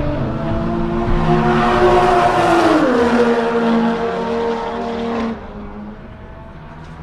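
Honda FK8 Civic Type R time-attack car's engine at full throttle on track, its pitch climbing and then dropping sharply about three seconds in before holding steady. The sound falls away abruptly a little after five seconds, leaving it much quieter.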